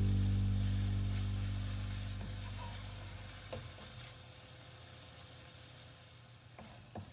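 Chopped tomatoes sizzling in oil in a nonstick frying pan, stirred with a wooden spatula that knocks against the pan a few times. Background music fades out over the first two to three seconds, leaving the faint sizzle.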